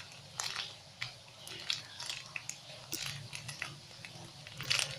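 A soft foam squishy toy being handled and squeezed close to the microphone: irregular small crackles and clicks, with a louder cluster near the end.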